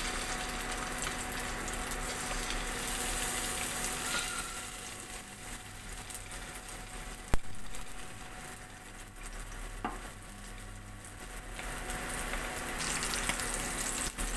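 Hilsa fish roe, coated with salt and turmeric, sizzling as it fries in hot oil in a kadai while pieces are laid in. A single sharp tick about seven seconds in.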